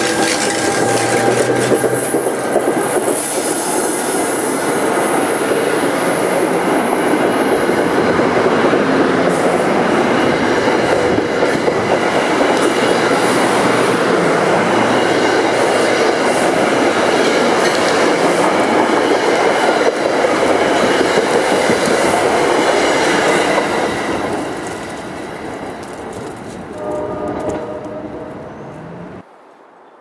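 NJ Transit passenger train hauled by an ALP-46A electric locomotive rolling into the station, its coaches clattering over the rails. A steady pitched tone sounds over it for the first couple of seconds; the train noise eases off about 24 seconds in and cuts off suddenly near the end.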